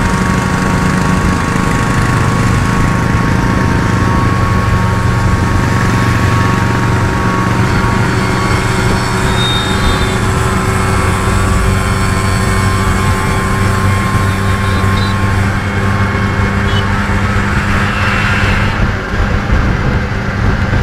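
Steady engine noise at cruising speed heard from inside a moving auto-rickshaw: its own small engine running evenly, with road and wind noise, while a Royal Enfield Bullet motorcycle cruises alongside.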